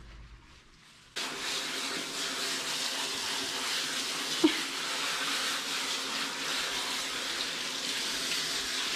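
Water spraying from a hose-end spray nozzle onto a dog's wet coat and the shower floor. It is a steady rushing spray that switches on abruptly about a second in. About halfway through there is one short, sharp sound, the loudest moment.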